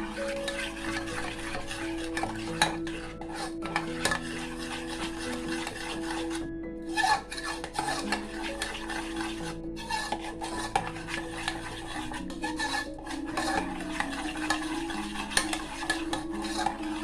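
A utensil stirring melting dark chocolate, milk and coffee in a pan, scraping against the pan with short pauses, over background music.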